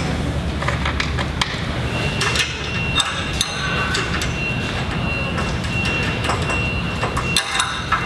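Scattered metallic clicks and taps as a washer and nut are fitted onto a U-bolt and run down with a wrench on a sprayer boom's riser mount, over a steady low hum.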